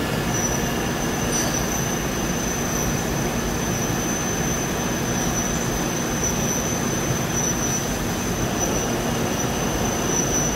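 Doosan TT1800SY CNC turning and milling center powered up and running: a steady machine hiss and hum with a constant high-pitched whine over it.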